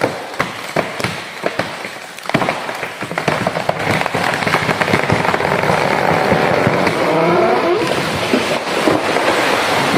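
Giant merbau (ironwood) tree giving way and falling: a run of sharp cracks and snaps as the trunk splits, then from about two seconds in a long, loud, crackling crash as it comes down through the branches.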